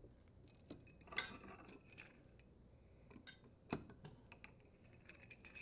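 Faint, scattered metallic clicks and clinks of pliers gripping and turning a dishwasher's threaded leveling leg, a handful of sharp ticks spread over a few seconds.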